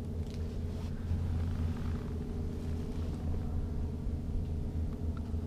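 A motor running steadily with a low, even hum.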